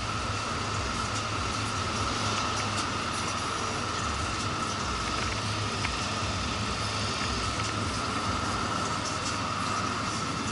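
Motorcycle on the move: a steady engine and road rumble with wind noise, holding an even level with no sudden events.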